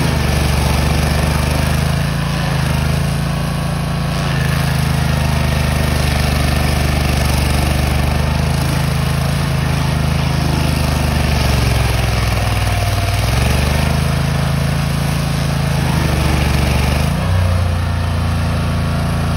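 Tracked stump grinder's engine running hard as its cutter wheel grinds a stump down at ground level. The engine note sags for about a second roughly two-thirds of the way through as the wheel bites, then picks back up, with a shorter dip near the end.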